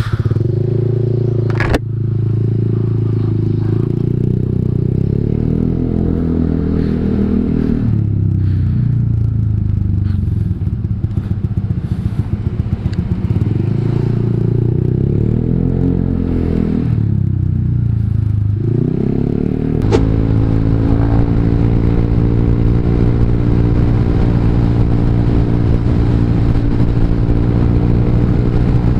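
Honda Vario 150 scooter's single-cylinder engine running through an R9 Alpha aftermarket exhaust with the dB killer removed, rising and falling in pitch as it speeds up and slows several times. About two-thirds in it settles to a steady pitch.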